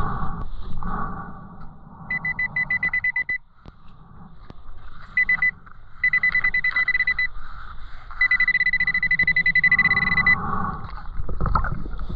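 Nokta Pulsedive underwater metal detector giving its target alert: a high, rapidly pulsed buzzing beep in four bursts, the longest about two seconds near the end, signalling metal under the coil. Muffled underwater rumble and water noise lie beneath.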